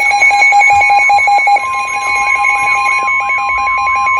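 Electronic emergency-alert tones: a rapidly pulsing beep, joined about one and a half seconds in by a steady tone and a repeating warbling sweep. The pulsing beep stops near the end.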